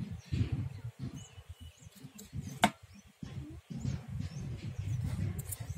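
A kitchen knife cutting up whole raw chickens on a steel plate, with one sharp click of the blade against the metal about two and a half seconds in. Wind rumbles on the microphone, and birds chirp faintly.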